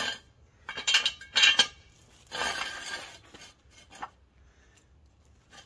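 Metal clanking and rattling of a steel jack stand being set and adjusted under a car, with a rougher scraping sound lasting about a second, roughly two and a half seconds in, then a few light ticks.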